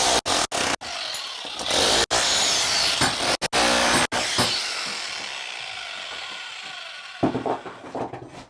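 Electric jackhammer (demolition hammer) running in loud bursts with several brief stops, then dying away gradually over a few seconds from about halfway through. A few knocks near the end.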